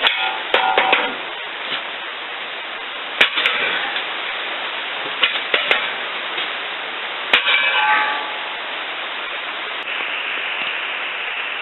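Sharp metallic clangs with brief ringing, about five groups spread over several seconds, from steel tractor parts being struck or knocked. A steady hiss runs beneath them.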